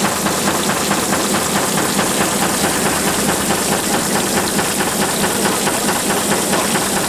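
Shaking table running: its drive head knocks in a fast, steady rhythm, with water hissing as it washes across the riffled deck.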